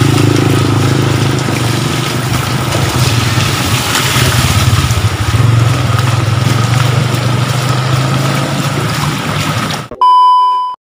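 Motorcycle engine running over the rush of flood water in a street. About ten seconds in it cuts off abruptly to a short, steady test-tone beep.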